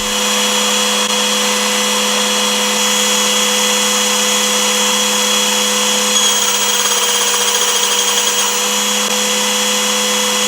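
Steady whine of a small electric motor running at constant speed, starting suddenly and holding one unchanging pitch.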